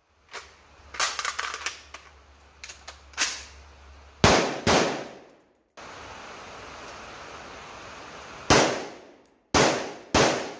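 Steyr AUG A3 M1 rifle in 5.56 NATO firing about seven sharp single shots at uneven intervals, each with a short echo off the sheet-metal shooting shelter. There are two groups, with a few seconds of steady outdoor background between them.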